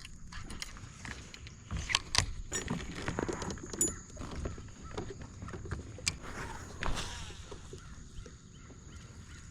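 Handling noises in a kayak: scattered knocks, clicks and rattles, the loudest about two seconds in.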